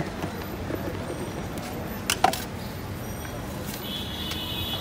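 Steady street background hum, broken about two seconds in by a sharp double clack of a plastic jar lid set down on a glass shelf. A brief high steady tone sounds near the end.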